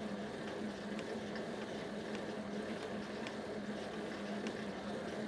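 Upper-body arm ergometer being hand-cranked: a steady whirring hum from its flywheel that swells and fades regularly, with faint clicks about every half second.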